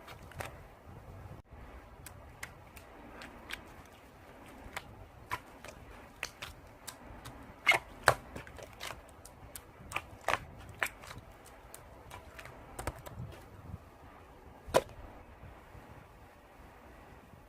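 Slime being squeezed and worked by hand, giving irregular sharp clicks and pops; the loudest come as a pair about eight seconds in and once more about fifteen seconds in.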